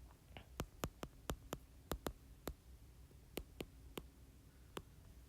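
Faint, sharp pen clicks and taps on a hard drawing surface, about a dozen at uneven intervals in two runs with a short pause in the middle, as a diagram is drawn.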